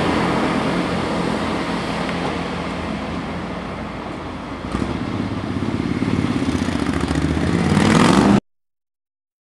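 British Rail Class 158 diesel multiple unit pulling away, its engine sound fading as it goes. About halfway through, a motorcycle engine grows steadily louder as it comes close, until the sound cuts off suddenly.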